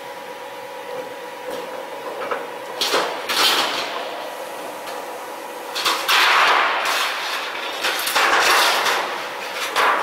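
Several loud bursts of metal clattering and scraping, each lasting about a second, around three, six and eight seconds in and again at the end, from thin sheet metal being handled on a solar water heater outer-tank locking machine. A steady machine hum runs underneath.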